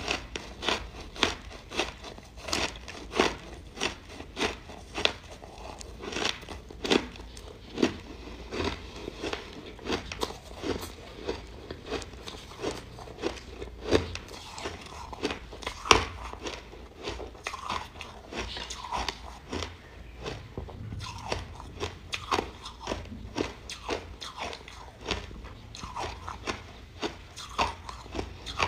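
Biting and chewing chunks of frozen ice coated in buckwheat flour: a long run of sharp, irregular crunches, denser in the first half.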